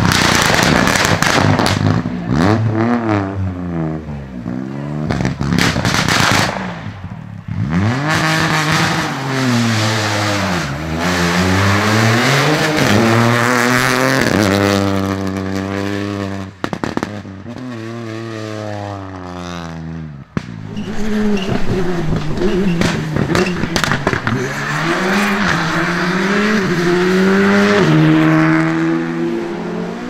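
Rally car engines, among them a Peugeot 208 Rally4, revving hard as the cars pass at speed. The pitch climbs and drops over and over as they shift up and down through the gears.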